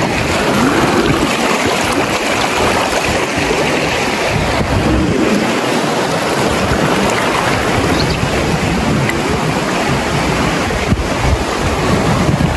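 Steady rush of flowing river water, with wind buffeting the microphone in a low, gusty rumble.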